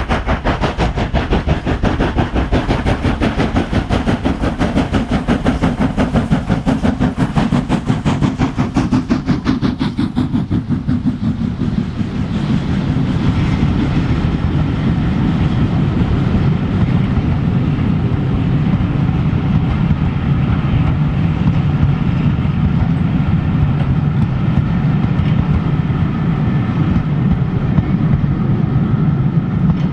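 Steam locomotive working a train, its exhaust beats coming in a fast, even rhythm. About ten seconds in the beats give way to a steady rumble of train wheels rolling on the rails.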